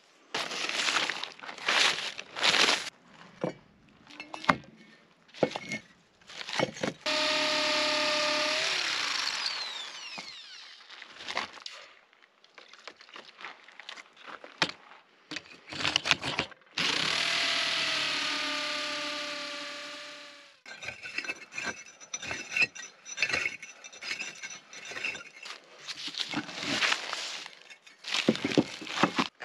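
Corded electric drill with a masonry bit drilling into clay bricks: two runs of a steady whine, each lasting three to four seconds and winding down when the trigger is let go. Between them come scrapes, knocks and clinks of bricks and a steel rod being handled.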